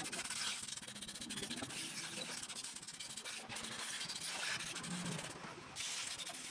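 Steady scratchy rubbing with many small clicks from hand work on an opened 100cc motorcycle engine crankcase, dropping away briefly about five and a half seconds in.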